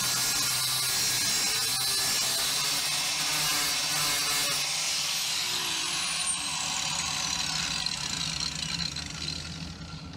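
Angle grinder grinding metal, running steadily with a high whine. Near the end the disc comes off the work and the whine falls in pitch as the grinder winds down.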